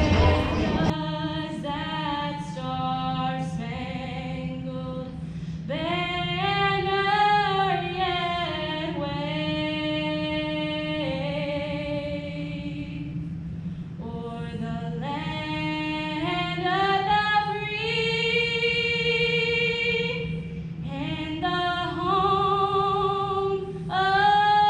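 A girl singing the national anthem solo into a microphone, unaccompanied, in long held notes with vibrato and short breaks between phrases, over a steady low hum.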